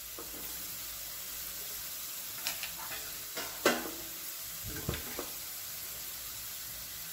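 Chopped carrot, beans and cabbage sizzling steadily in hot oil in a wok, with a few short clicks and knocks about halfway through.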